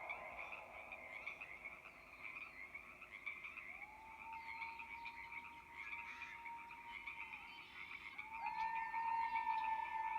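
Frogs croaking in a steady chorus, with two long, faint human howls held on one note over it. The first howl starts about four seconds in; the second, louder one starts near the end.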